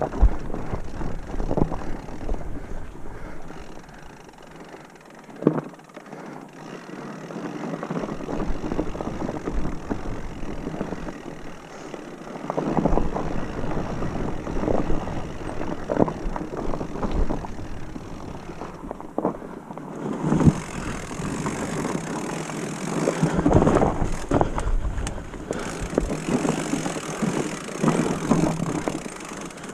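Mountain bike rolling over a rough, rooty forest singletrack: tyre rumble and rattle from the bike, with sharp knocks as the wheels strike roots and rocks. About two-thirds of the way through, wind buffeting on the camera microphone adds a steady hiss.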